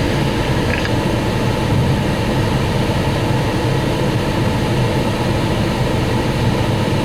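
Steady low rumble of vehicle engines in traffic, unchanging throughout.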